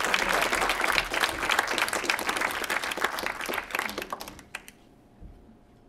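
Theatre audience applauding, dense clapping that dies away about four and a half seconds in.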